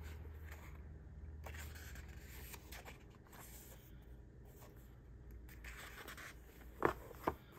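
Faint rustling of thin paper pages as a B6 Slim planner is leafed through by hand, with two brief louder clicks near the end.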